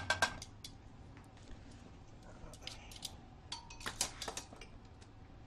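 Stainless steel skillet clinking on the metal grate of a gas range: a few sharp metallic clinks with a brief ring at the start, and another short cluster about four seconds in.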